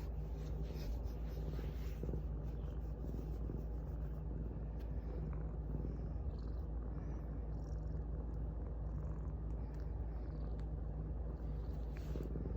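Domestic cat purring steadily and continuously, picked up at close range by a phone lying on a lap under the cat, so the purr comes through as a deep, even rumble.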